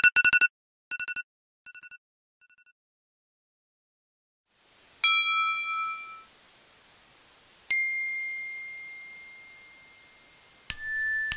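A fading echo tail, a short silence, then three single bell-like dings about two and a half to three seconds apart, each ringing out and dying away; the second rings longest.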